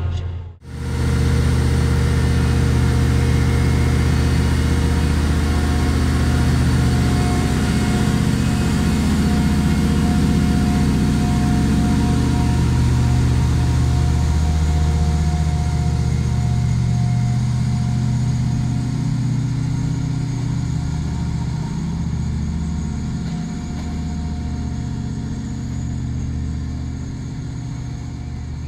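Diesel engine of a VolkerRail MATISA B45 UE track tamper running steadily as the machine rolls slowly past and draws away, its hum fading in the second half. A thin steady whine rides over it in the middle.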